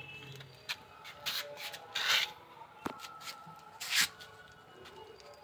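A run of short rubbing and scraping sounds, with the loudest about two seconds in and again about four seconds in.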